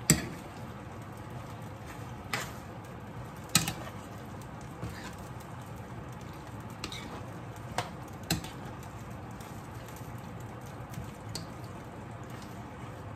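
A metal spoon stirring thick creamy penne and sausage in a frying pan: scattered sharp clicks and taps of the spoon against the pan, the loudest at the very start and about three and a half seconds in, over a steady low hiss.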